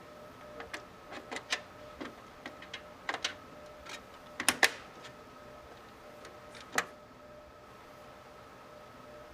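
Small plastic clicks and taps as a DDR3 RAM stick is handled and pushed into a motherboard DIMM slot. A sharper double click about halfway through is the slot's retention clips snapping shut, the click that means the stick is locked in place.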